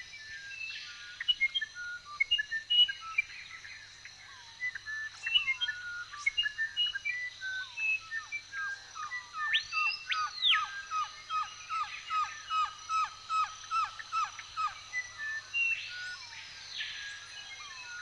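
Daytime forest ambience of many birds calling and chirping. One bird gives a rapid series of short, repeated falling notes for several seconds in the middle, and loud arching whistled calls come about ten seconds in, again near sixteen seconds and at the end. A steady high insect drone runs underneath.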